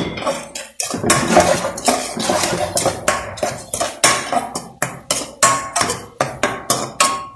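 Metal tongs clanking and scraping against a metal wok while chicken and vegetables are stirred: a quick, irregular run of knocks, several a second, some leaving a short metallic ring.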